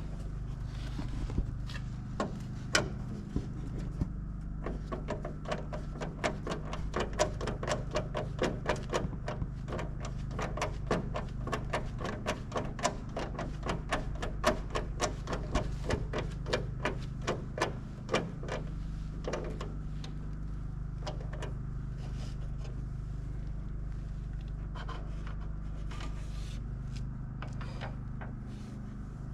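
A rapid run of small, sharp clicks, several a second, over a steady low hum, most dense from about four seconds in to about eighteen seconds in, sparser afterwards. It is typical of hand-tool work on wiring.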